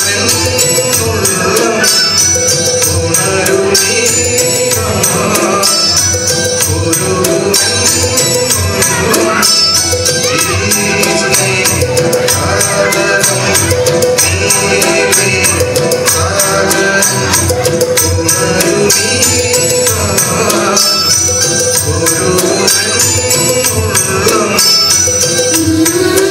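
Music with a fast, steady percussion beat under a melody.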